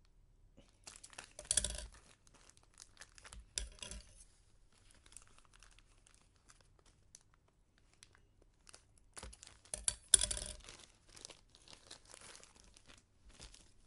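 A small plastic-wrapped packet being cut open with scissors and torn apart by hand, the plastic crinkling in irregular bursts. The loudest bursts come about a second and a half in and again around ten seconds in.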